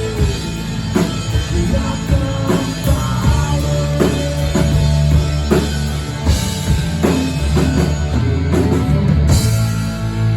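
Live rock band playing: a drum kit keeps a steady beat over electric guitar and bass. About nine seconds in, a cymbal crash leads into a held chord.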